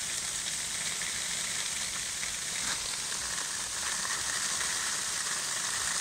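Small hail and rain falling steadily, an even hiss with no break.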